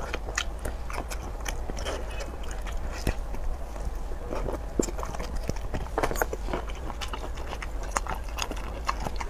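Close-up eating sounds: biting and chewing shellfish meat from a large shell, with many short, wet mouth clicks and smacks.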